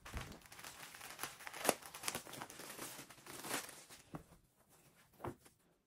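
Clear plastic wrap crinkling and tearing as it is pulled off a flat-packed fabric storage ottoman, for about four seconds. After that it goes quieter, with two soft knocks.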